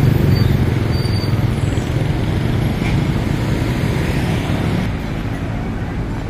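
Bus engine running with a steady low rumble, easing off slightly about five seconds in.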